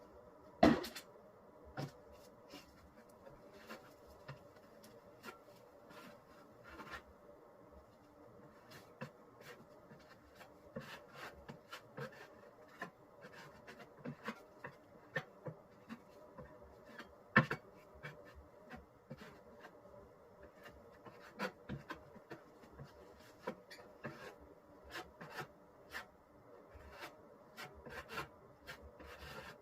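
A spreading knife scraping and smoothing a wet skim coat of Henry Feather Finish cement over a table top, with many small irregular taps and clicks. Two sharper knocks stand out, about a second in and about halfway through.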